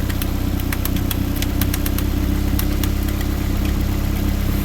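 Running Toyota engine idling steadily, with a scatter of sharp clicks over it, thickest in the first two seconds.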